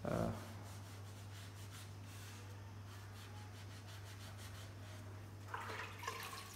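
A hand-held pad rubbing and scrubbing over terracotta brick cladding in quick repeated strokes, wiping off grout residue, over a steady low hum. A short thump comes right at the start.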